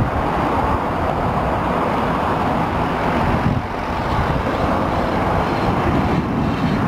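GMC 3500 crew-cab service truck driving past over a dirt lot, its engine running and tyres rolling on the packed dirt, steady throughout.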